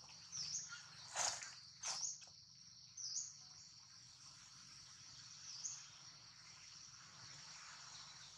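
Steady high-pitched insect drone in the background, with a few short high chirps in the first few seconds and one more about five and a half seconds in. Two brief crackles come at about one and two seconds in.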